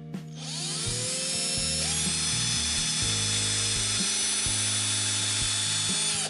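Drill spinning up and boring into a hard rubber hockey puck: the motor's pitch rises over the first two seconds, then a steady whine with a grinding hiss until the drill cuts off near the end.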